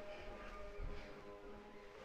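Faint music with long held notes.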